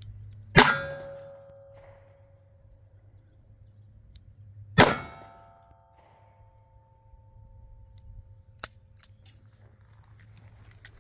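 Two .38 Special +P revolver shots about four seconds apart, each followed by a metallic ring that fades over a second or two, like a struck steel target. A small sharp click comes near the end.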